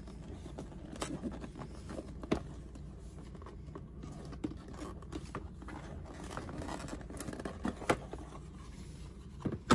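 A blank white cardboard box being handled and slid about on a tabletop: soft rubbing and scraping of card, with a few sharp light taps.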